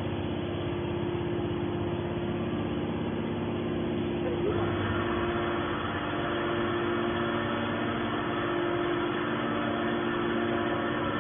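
Hydraulic aluminium can baler running, its pump motor giving a steady hum. About four and a half seconds in, the sound grows fuller and brighter.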